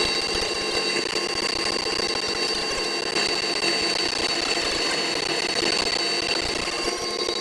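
Combine harvester running steadily, a constant machine din with a high, even whine over it.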